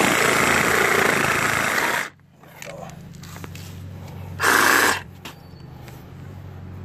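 Ryobi P516 18V cordless reciprocating saw cutting into a wooden 4x4 post, the blade rasping steadily through the wood, then stopping sharply about two seconds in; the owner finds it too weak to get through the 4x4. A short loud burst of saw noise comes a little past halfway, over a faint low hum.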